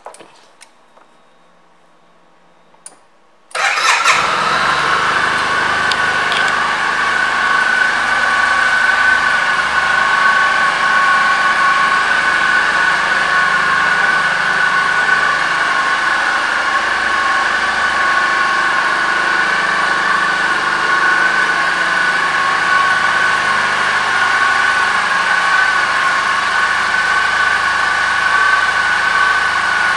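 A 2012 Suzuki Burgman 650 Executive maxi-scooter's parallel-twin engine starts suddenly about three and a half seconds in, then idles steadily and evenly.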